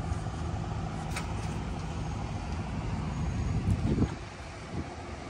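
A vehicle engine idling with a steady low hum, with a faint short voice about four seconds in.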